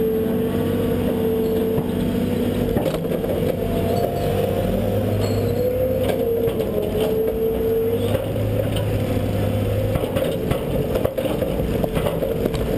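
Tracked excavator running under load while digging and swinging: its diesel engine and hydraulics give a steady whine that wavers in pitch about halfway through, with scattered clanks and scrapes from the bucket and machine in the second half.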